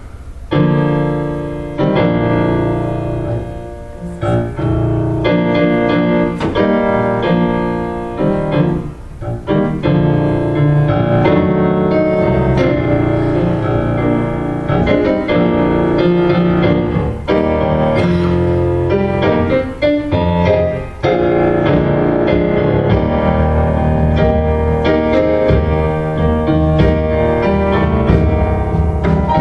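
Piano playing, starting about half a second in.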